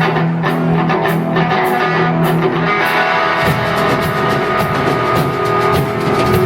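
Live rock band playing: distorted electric guitar holding a low chord, with the drum kit hitting a steady beat from about halfway through.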